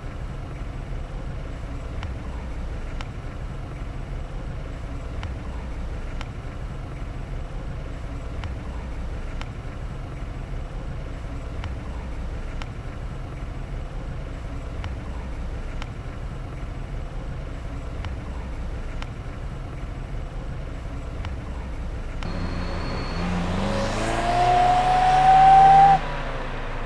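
A steady low engine hum, then a car drives close past, its engine and tyre noise swelling over a few seconds with a shifting pitch before cutting off abruptly.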